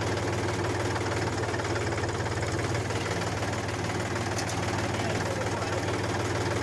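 Mini tractor engine running at a steady, even chug as the tractor moves forward.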